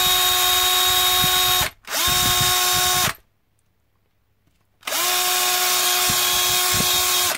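Handheld power drill run in three bursts, its bit cutting down a raised plastic ring around a screw hole in a plastic RC battery tray so the screw head will sit flush. Each run spins up quickly to a steady whine; two short runs with a brief break, then a pause of about two seconds, then a longer run.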